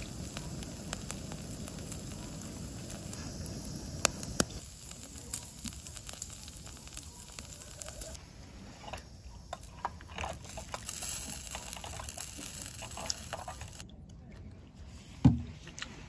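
Marinated pork skin sizzling and crackling on a mesh grill over a lit canister gas stove, with sharp pops now and then. A single loud knock comes near the end.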